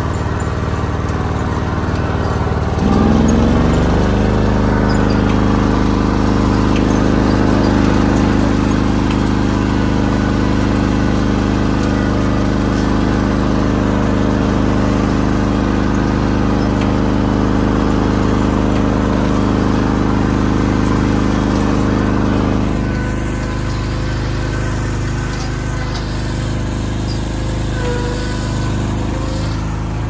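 Ride-on lawn mower engine running, speeding up about three seconds in and holding a steady pitch, then easing to a quieter, lower run about two-thirds of the way through.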